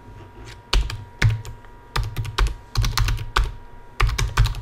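Typing on a computer keyboard: irregular keystrokes, some in quick clusters of two or three, as a short line of text is entered.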